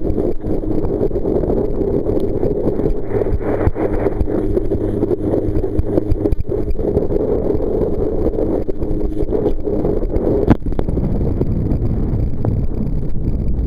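Loud, muffled rush of wind and water against a life-jacket-mounted camera as a kneeboarder is towed at speed behind a speedboat. A single sharp knock comes about three quarters of the way through.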